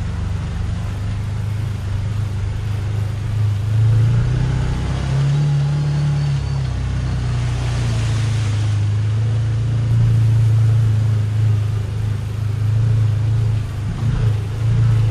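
Can-Am Commander 1000 side-by-side's V-twin engine running steadily at around 3,500 rpm while it wades across a shallow, rocky river, with water splashing around the wheels. The engine note rises briefly about five seconds in, and a louder rush of spray comes about eight seconds in.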